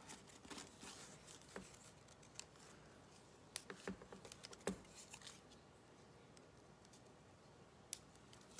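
Faint handling sounds of cardstock and craft supplies on a tabletop: scattered soft clicks and paper rustles, with a cluster of sharper taps around the middle.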